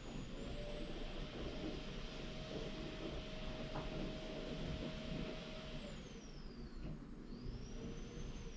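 Vacuum cleaner running in the next room: a steady rushing noise with a motor whine, which falls in pitch about six seconds in and then climbs back up.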